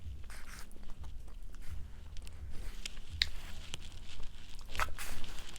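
Close-up eating sounds: chewing and wet mouth noises as red beans and rice are eaten, with a few sharp clicks, the clearest about three seconds in and another shortly before the end.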